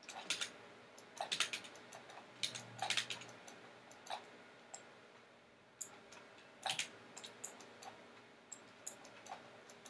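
Scattered clicks of a computer mouse and keyboard, some single and some in quick clusters, over a faint steady hum.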